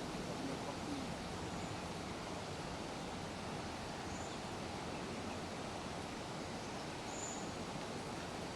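Steady rain, an even hiss without let-up, with a few short, faint high chirps about a second and a half in, near four seconds and past seven seconds.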